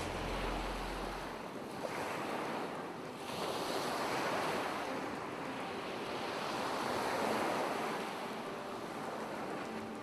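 Ocean surf: waves breaking and washing on a shore, swelling and easing every few seconds. A low steady hum fades out about a second and a half in.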